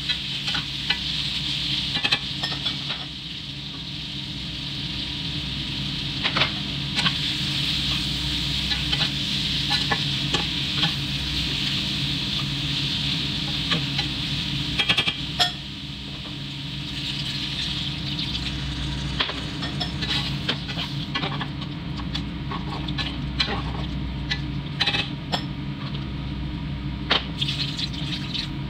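Chicken, potatoes and capsicum sizzling in a nonstick wok while a spatula stirs them, with frequent sharp clicks and scrapes of the spatula on the pan. Toward the end, with milk and water in the pan, the sizzle is softer and the food bubbles in a creamy sauce.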